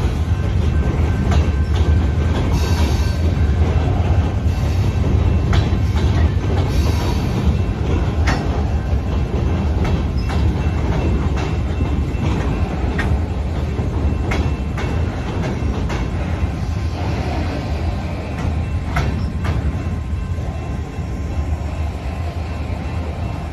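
Freight train of empty gondola cars rolling through a grade crossing: a steady deep rumble with irregular clacks of the wheels. It eases a little in the second half as the end of the train nears.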